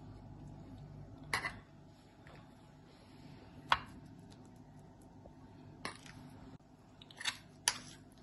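A metal spoon clicking against plastic idli plates and the batter bowl as dal batter is spooned into the moulds: five sharp clicks about two seconds apart, the last two close together, over a faint low hum.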